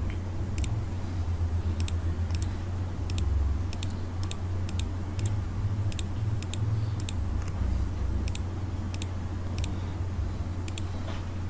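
Computer mouse clicking: about fifteen short, sharp single clicks at irregular intervals as checkboxes and buttons are clicked, over a steady low hum.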